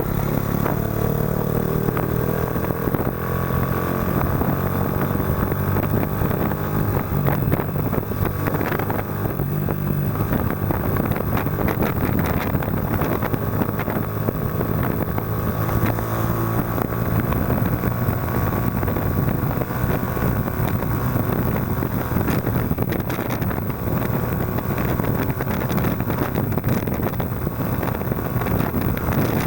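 Yamaha Factor 125's single-cylinder four-stroke engine running through an aftermarket Roncar aluminium exhaust while riding, a steady low exhaust note with wind rushing on the microphone.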